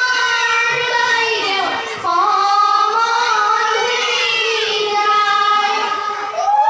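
Girls' voices singing an Assamese biya naam, a traditional wedding song, with long held notes and no instruments. The singing breaks off briefly about two seconds in and again near the end before the next line starts.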